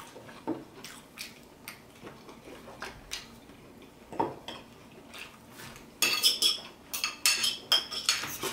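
Metal fork clinking and scraping against a plate, with scattered light taps at first and a quicker run of sharper clinks in the last couple of seconds.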